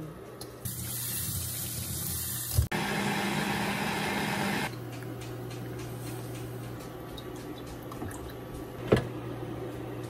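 Liquid pouring and splashing for about four seconds, in two stretches, as it is strained through a sieve into a bowl. A steady low hum runs under it, and a sharp knock comes about nine seconds in.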